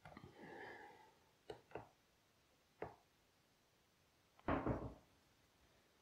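Handling noises from fitting a flexible vacuum hose at an overhead pipe: a short scraping rub, then a few light knocks and one heavier thump about four and a half seconds in.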